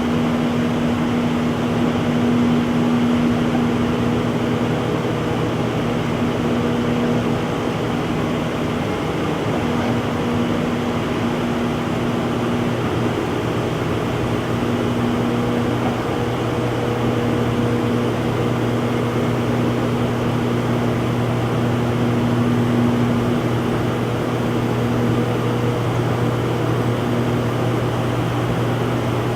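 Front-load washing machine on its spin cycle, running at a steady speed: an even whirring hum with a low drone and a higher tone that fades in and out.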